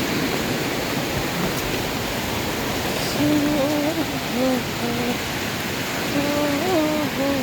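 Steady rushing of a small stream. From about three seconds in, a voice carries a tune over it in short held notes.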